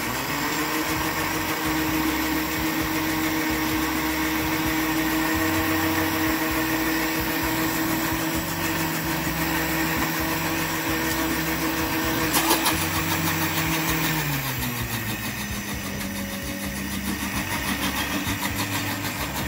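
Electric countertop blender motor running steadily, pureeing a liquid barbecue-sauce base of ketchup, orange juice and seasonings. There is a brief knock about twelve seconds in. A little later the motor's pitch drops and settles at a lower steady hum.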